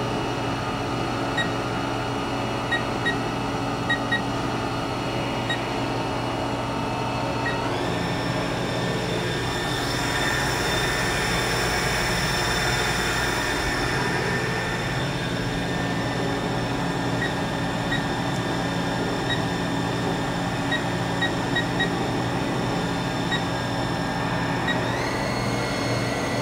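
Haas VF-4 vertical machining center running with a steady whine of several tones. The pitch steps up about a third of the way in and drops back down near the end. Short high beeps from its control keypad sound as keys are pressed.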